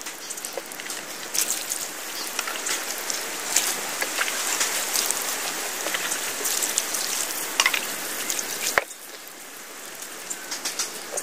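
Wet crackling and pattering as a large tuna is washed by hand: water trickling over the fish and the wet plastic sheet under it while hands rub the flesh. It turns quieter after a sharp tick near the end.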